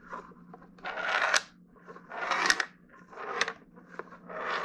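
Plastic puzzle pieces of a ThinkFun Tilt game sliding across the tilted plastic grid, four times, each slide a short rattle ending in a sharp click as the pieces stop against the grid's edge.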